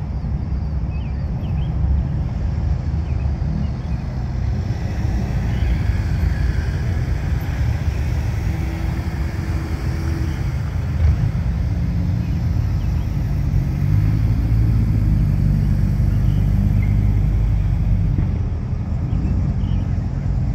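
Cars driving slowly past one after another with their engines running, a low engine rumble throughout. The rumble grows louder in the last several seconds as a Chevrolet Camaro approaches.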